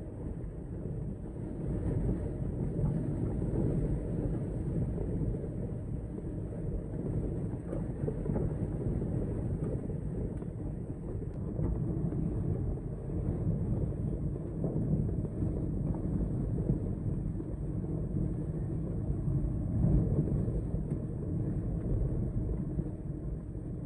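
Blizzard wind gusting: a low rumbling rush that swells and eases every few seconds.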